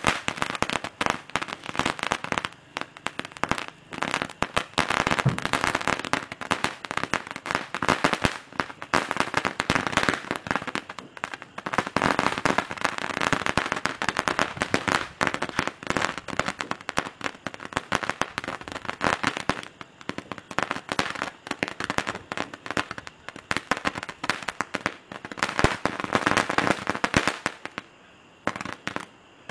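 Standard Fireworks 'Magic Whip' spark firework burning with a dense, continuous crackle of sharp pops as it sprays sparks. Near the end the crackling dies out, leaving a few scattered faint pops as it burns out.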